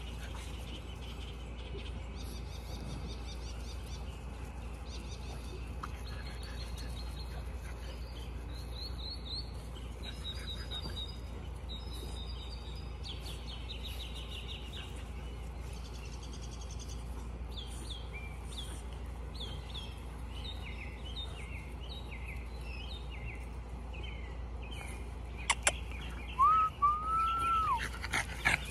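Wild birds chirping and trilling in the background. Near the end, a French bulldog puppy gives a few sharp yips, then a loud high whine in two arched notes.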